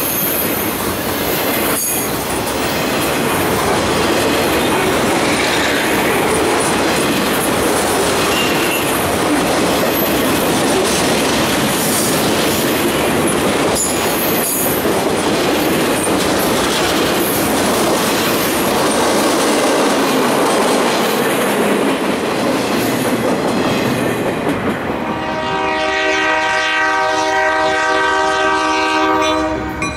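Loaded continuous-welded-rail train rolling past, its steel wheels clattering on the track with a few faint clicks. In the last few seconds the sound changes to a locomotive horn sounding a steady chord of several tones, from the approaching lead unit, a GP40X diesel.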